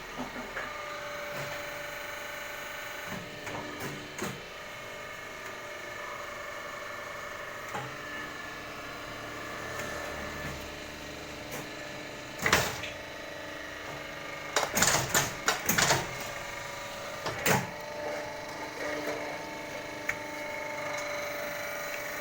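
Automatic water-gallon cap making machine running with a steady hum of several tones, broken by sharp clicks and, about two-thirds of the way in, a quick run of loud clattering knocks.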